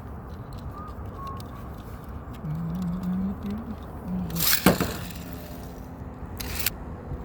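A Beyblade X spinning top launched into its stadium, a short sharp rip about two-thirds of the way in, then the top spinning with a faint steady whir. There is a second sharp scrape near the end.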